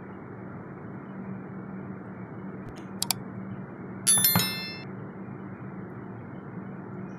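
Spatula knocking against a glass baking dish: two light clicks about three seconds in, then a sharp clink a second later that rings briefly. A steady low hum runs underneath.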